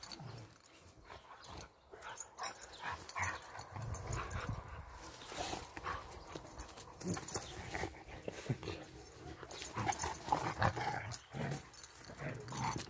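Two Rottweilers play-wrestling on dry fallen leaves: scuffling and crackling leaves, with low dog growls coming and going.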